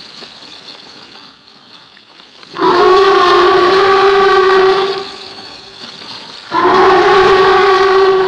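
Alligator roar sound effect: two long, loud calls held on a steady pitch, the first starting about two and a half seconds in, the second near the end.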